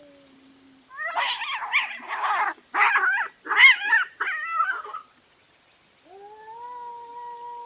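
Cats yowling and screeching in a fight. A low, drawn-out yowl trails off at the start, a burst of loud, harsh, wavering screeches follows from about one to five seconds in, and a long, steady yowl starts near the end.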